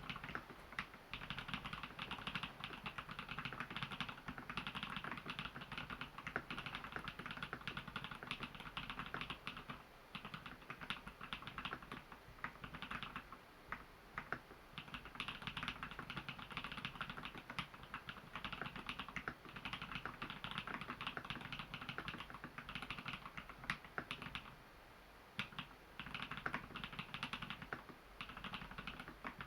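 Custom mechanical keyboard in an XO v3 housing, fitted with Holy Panda tactile switches lubed with Krytox grease and filmed, with added Thinsulate dampening foam, being typed on quickly and continuously. There are short pauses about ten, fourteen and twenty-five seconds in.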